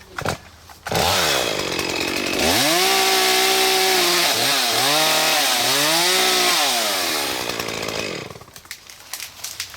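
Chainsaw revving up, then cutting into an Ohio buckeye trunk for a hinge cut, its engine pitch sagging under load and dipping several times before easing off and falling away near the end.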